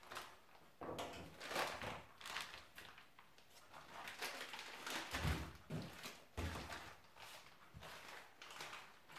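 Plastic vacuum bags rustling and crinkling as pieces of meat are cut out of them and handled. There are two dull thumps, about five and six and a half seconds in.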